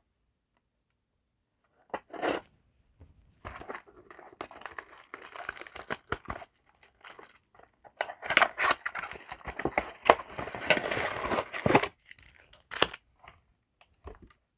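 Foil booster pack wrapper being torn open and crinkled, in a run of rustling tears that is loudest from about eight to twelve seconds in.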